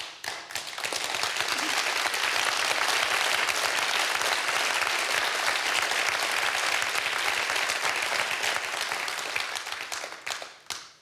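Audience applauding: a few scattered claps build within a second into dense, steady applause, which thins out to a last few claps near the end.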